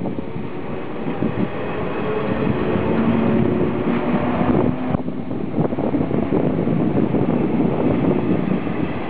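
JNR 185-series electric multiple unit pulling away, its MT54 traction motors giving a hum that steps up in pitch as it gathers speed, over the rumble of the wheels on the rails. About five seconds in the motor tone drops out suddenly.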